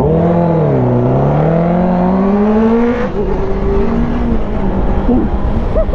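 Honda CBR1000RR Fireblade's inline-four engine pulling hard under throttle: the revs dip, then climb steadily for about two seconds. About three seconds in the throttle closes and the note drops to a lower, steadier run.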